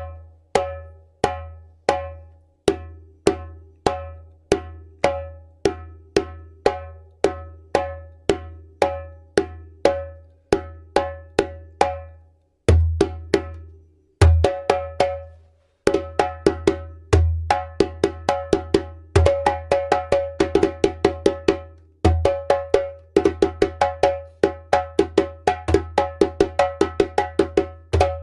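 Djembe played by hand. It starts as a steady run of even strokes, about two to three a second. About halfway it breaks into a freer, faster pattern mixing the drum's different sounds, with some much deeper, heavier strokes among quick runs of lighter ones.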